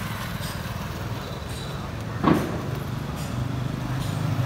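KTM Duke 390's single-cylinder engine idling through its exhaust with the baffle removed, a low, fast-pulsing note. About two seconds in there is one sharp, brief louder sound, and the note firms up slightly toward the end.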